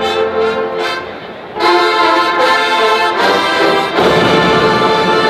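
Brass band music, horns holding chords, jumping louder about a second and a half in.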